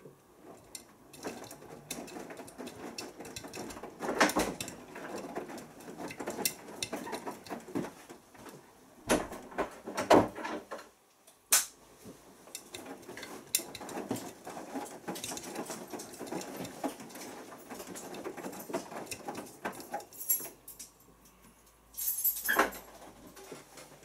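Beko WMB81445L washing machine drum tumbling wet laundry during the heating stage of a synthetics 40 °C wash: water sloshing, with fabric thudding and clicks. The drum stops briefly about halfway through and again near the end, then turns again.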